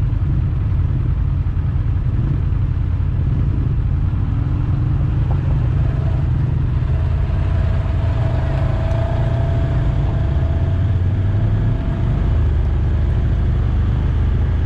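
Off-road side-by-side engines running at low trail speed: a steady low drone, with a faint higher whine that comes and goes in the middle.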